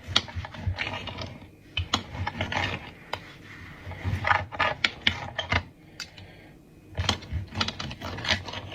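A knife sawing through a microwave-cooked steak: repeated short scrapes and clicks as the blade works back and forth against the surface underneath.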